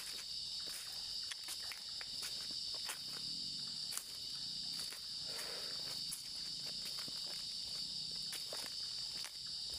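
Crickets chirping in a steady, high-pitched chorus, with scattered light clicks and rustles of footsteps on the forest floor.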